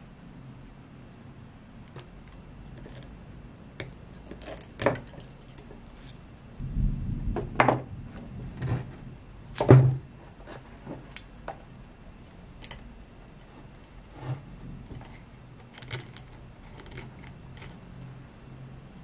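Scattered clicks, clinks and light knocks from an electric scooter hub motor stator and its axle being handled on a workbench, with a few louder knocks about five, eight and ten seconds in.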